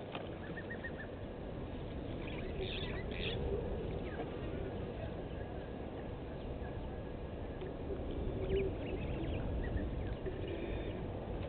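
Faint bird calls, a few short chirps, over a steady low outdoor rumble.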